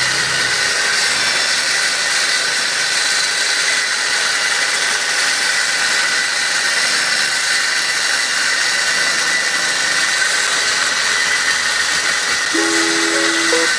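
A steady, loud hiss with no rhythm or change, with a few music notes coming in near the end.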